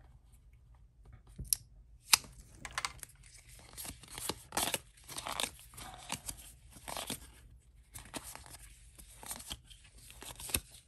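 Paper trading cards and their packaging being handled as a pack is opened and the cards are slid apart and fanned. It comes as a string of short rustles and crinkles, beginning with a couple of sharp snaps about two seconds in.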